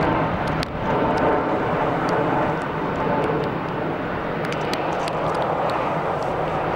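The four Engine Alliance GP7200 engines of an Airbus A380 running at taxi power: a steady hum and rush with a held tone through it. Scattered light ticks sound over it, in heavy rain.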